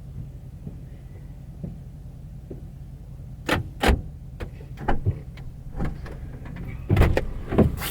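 Steady low rumble, then from about three and a half seconds in a run of sharp knocks and clunks, irregularly spaced, the loudest about seven seconds in.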